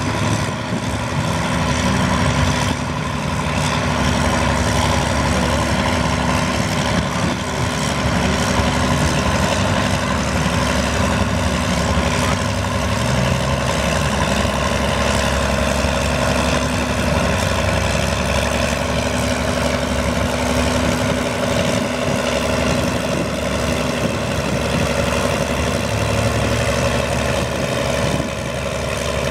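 Case Comfort King tractor engine running steadily under load as the tractor drags a weight-transfer pulling sled, its note holding fairly even throughout.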